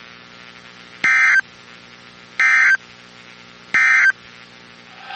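Emergency Alert System end-of-message (EOM) signal: three short bursts of screeching SAME digital data tones, about a second and a third apart, marking the end of the alert. A faint steady hum runs underneath.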